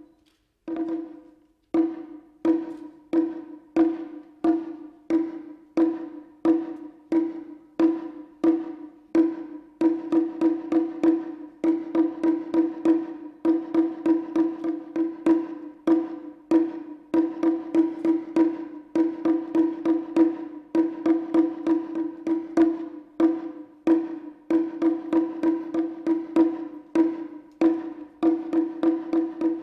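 Japanese taiko drum struck in a steady rhythm, each hit ringing with a high, clear pitch. The strikes come about twice a second at first and grow denser, with quicker runs, from about ten seconds in.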